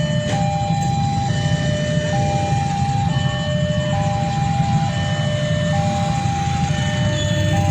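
Railway level-crossing warning alarm sounding, an electronic two-note signal that alternates a higher and a lower tone, each held about a second, signalling that a train is approaching or passing. Underneath it runs a steady low rumble of traffic or train.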